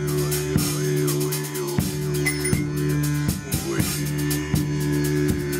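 Live improvised acoustic band music: a drum kit keeps a steady pattern of cymbal strokes and drum hits under held low notes, with a higher line sliding up and down in pitch.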